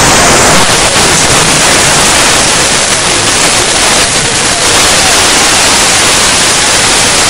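Loud, steady rushing of a wadi in flood, an even wall of water noise with no breaks.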